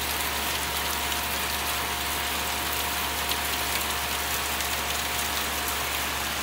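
Heavy rain pouring down, an even, steady hiss. A faint steady tone sounds beneath it and stops near the end.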